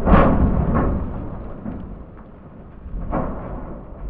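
A Dodge Ram pickup with a steel roll-over protection bar tumbling over on dirt in a rollover test: heavy crashing impacts as the body strikes the ground over a low rumble. The loudest impact comes right at the start, another just under a second later, and a third about three seconds in.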